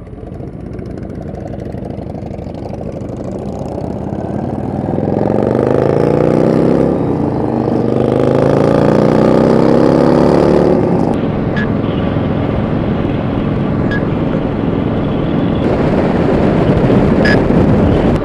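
Sport motorcycle's engine accelerating hard from a stop through the gears, its pitch climbing in rising sweeps as wind rush builds on a helmet-mounted microphone. About eleven seconds in the throttle closes and the engine note drops away, leaving steady wind noise with the engine running underneath.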